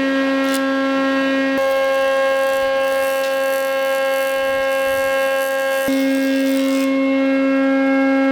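An electric planing machine running with a steady whine. From about a second and a half in to about seven seconds in, a board is fed across the cutter, adding a hissing cutting noise.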